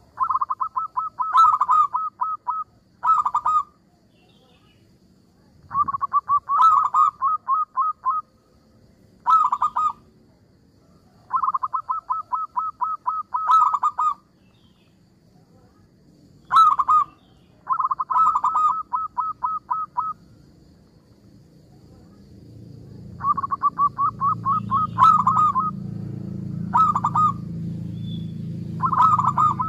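Zebra dove (perkutut) cooing. Each phrase is a run of rapid, evenly spaced coo notes, half a second to two and a half seconds long, repeated after short pauses, with long phrases alternating with short ones. A low steady rumble comes up in the background in the last third.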